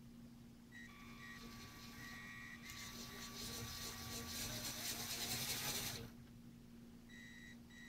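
LEGO Power Functions electric motor running through the model's plastic Technic gears: a faint whirr with a thin high whine, louder from about three seconds in until it drops back about six seconds in.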